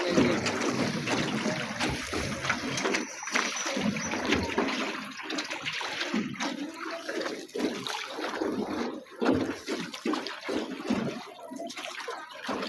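Water splashing and trickling around a small rowed boat, in irregular uneven splashes.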